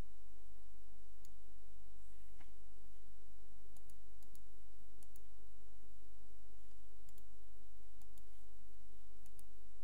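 Computer mouse clicking: scattered sharp clicks, several in quick pairs, over a steady low electrical hum.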